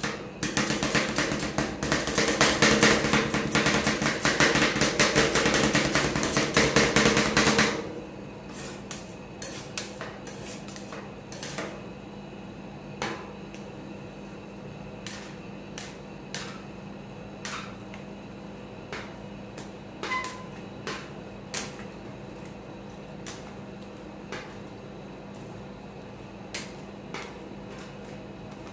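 Two metal spatulas chopping rapidly on a frozen metal ice-cream plate, a dense run of quick clicks and knocks for about the first eight seconds. After that come slower scrapes and single taps as the mix is spread flat, over a steady low hum.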